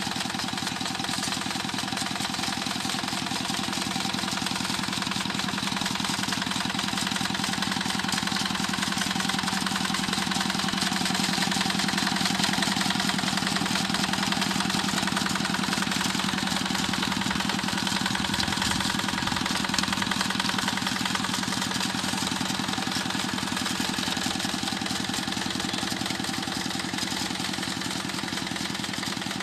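Tractor engine running steadily while plowing a rice paddy.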